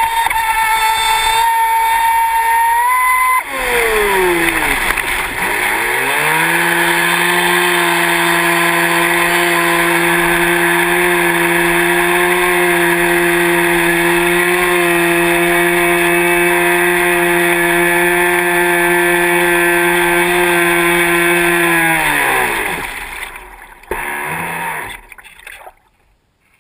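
Traxxas Spartan RC boat's brushless electric motor whining at high speed over the rush of water on the hull. About three and a half seconds in, the pitch drops sharply as the throttle is cut, then climbs back to a steady, lower cruising whine. Near the end the whine winds down and fades to near silence as the boat coasts off the plane.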